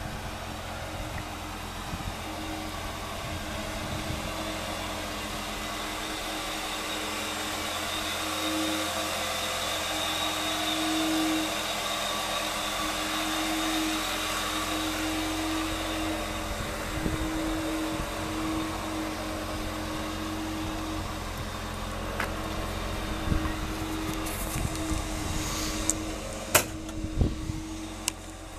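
1988 Ford Mustang LX's 2.3-litre four-cylinder engine idling steadily, with a few sharp clicks near the end.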